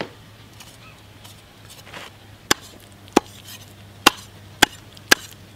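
Knife chopping shark meat into pieces on a wooden chopping block: five sharp chops, about half a second to a second apart, starting about halfway through.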